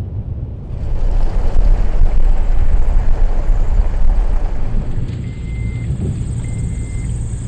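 Toyota vehicle driving slowly: low road rumble and wind noise, louder from about one second in until about five seconds. After that the noise is steadier, with two short high beeps about a second apart near the end.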